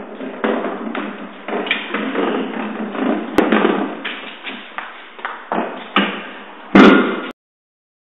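Steel beer cask being rolled by hand along concrete paving: a rolling rumble broken by repeated knocks, with a loud clang near the end before the sound cuts off.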